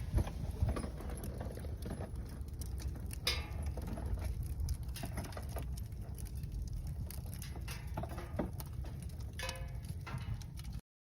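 Wood fire crackling, with irregular sharp pops over a steady low rumble; it cuts off suddenly near the end.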